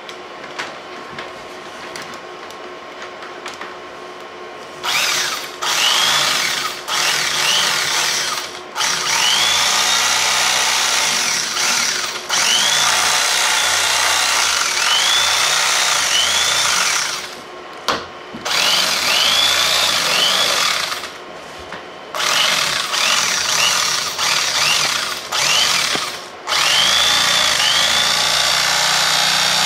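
Electric carving knife running in repeated bursts, its twin reciprocating blades sawing through a foam gun-case insert. It starts about five seconds in and stops and starts several times, with short rising-and-falling whines as it cuts.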